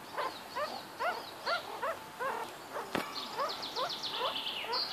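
Meerkats giving short rising peeps, about two a second, each a quick upward-sweeping call. A faster run of high chirps sounds over the second half, and a sharp click about three seconds in.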